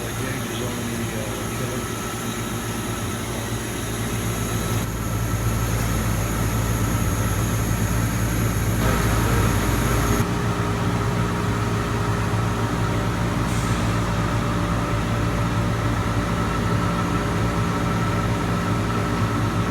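Steady machine hum of a Mazak Super Turbo X48 CO2 laser cutter and its auxiliary equipment running, with several held tones over a low rumble. It grows louder about four seconds in and shifts in tone a few times after that.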